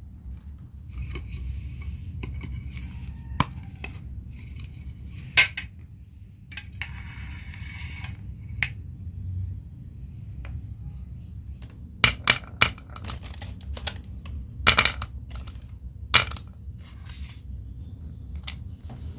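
Marbles rolling down a marble-run track: a light rolling rattle broken by sharp clicks and clacks as they knock against the track and each other, with a dense run of loud clicks in the second half, over a low steady hum.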